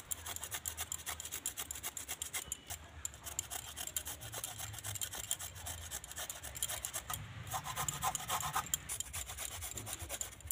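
A carrot being grated on a flat metal hand grater: quick, repeated rasping strokes.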